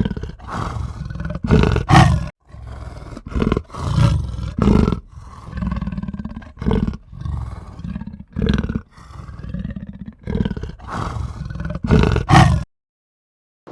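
A large animal's deep, repeated roaring grunts, about a dozen in a row, stopping abruptly about a second before the end.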